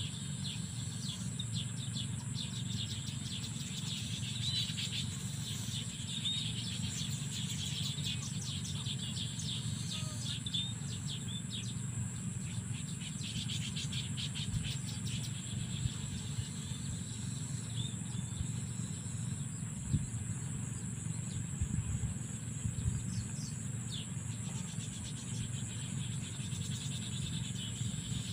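Steady high-pitched insect chorus over a low background rumble, with bursts of rapid chirping through much of the first half and a few soft knocks about two-thirds of the way through.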